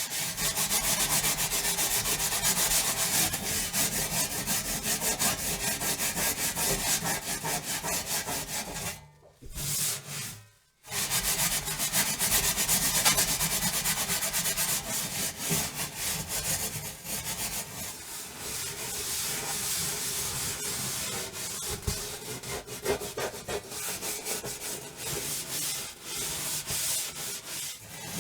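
Oven surface being scrubbed with rapid back-and-forth strokes, giving a continuous scratchy rubbing. It breaks off briefly about a third of the way through.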